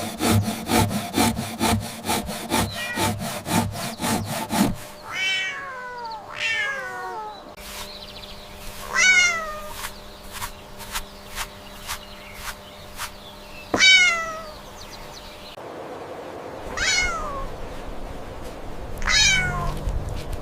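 A cat meowing about six times, each meow falling in pitch, after a few seconds of quick, even scraping strokes at the start.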